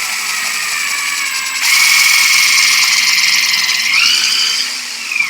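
Electric drill running a bit into a hardwood maple table leg, a steady motor whine that gets louder about a second and a half in and rises in pitch around four seconds.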